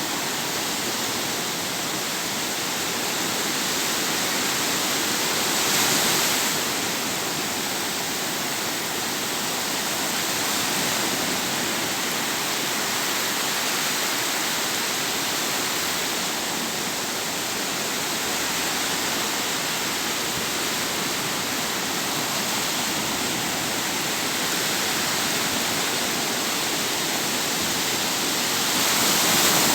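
Sea waves on the shore: a steady wash of surf, with a wave breaking louder about six seconds in and another near the end.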